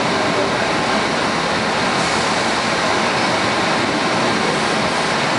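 A 1965 PA-1 PATH subway train running through a tunnel, heard on board: a steady, even rushing noise of the car's wheels on the rails and its running gear.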